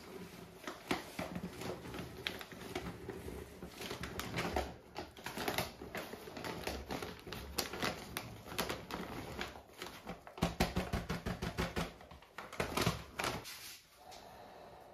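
Glaze being worked by hand in a mesh sieve and bucket during mixing: rapid, irregular scratching and clicking, with a louder stretch about ten seconds in.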